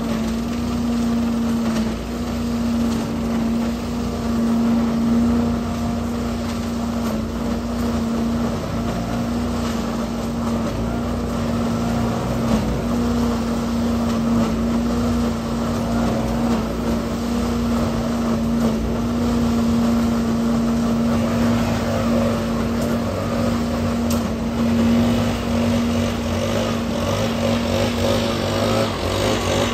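Gas-engine leaf vacuum running steadily, sucking dry leaves from a pile through its large flexible hose: a constant engine drone with a strong steady hum.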